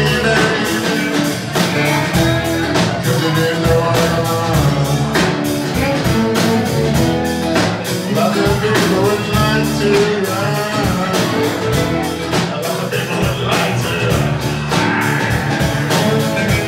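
Live band music: fiddle over strummed acoustic guitar and a drum kit, playing a rock/blues song.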